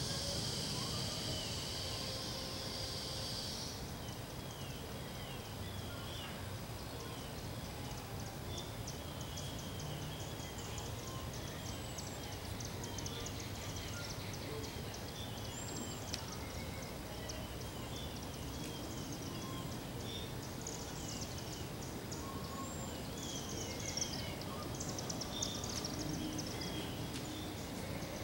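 Outdoor ambience with birds calling: a short chirp repeated over and over, more than once a second, over a steady low background hum. A high buzzy trill sounds for the first three or four seconds, then stops.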